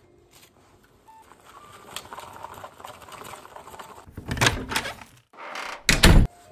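Wooden chopsticks stirring sticky natto in its foam tray, a quick run of fine scraping clicks. In the last two seconds come a few much louder bursts of noise, the loudest about six seconds in.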